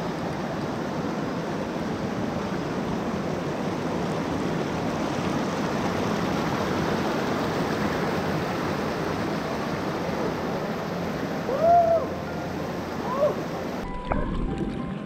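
Mountain stream rushing steadily over boulders. About three-quarters of the way through, two short whistle-like notes rise and fall above the water. Near the end the water sound cuts off and a few soft steady tones begin.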